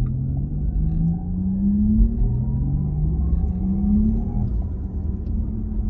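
Porsche Taycan GTS's Porsche Electric Sport Sound heard inside the cabin: a synthesized motor hum made of several tones that rises in pitch twice as the car accelerates, then holds steady, over a low road rumble.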